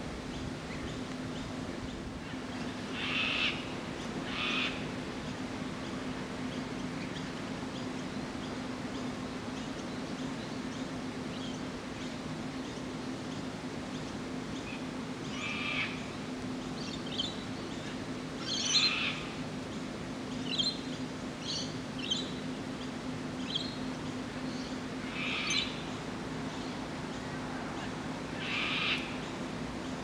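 Juvenile Australian magpie begging: about six short calls a few seconds apart, with fainter, higher chirps in between, over a steady low hum.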